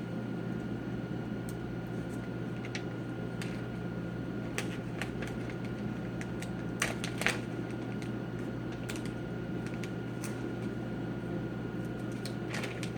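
Scattered light clicks and crackles of plastic being handled, a dozen or so spread irregularly, over a steady low electrical hum.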